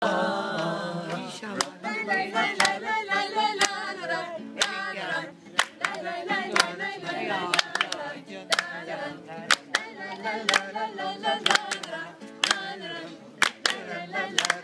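A small group singing together to an acoustic guitar, with hand claps keeping time about once a second.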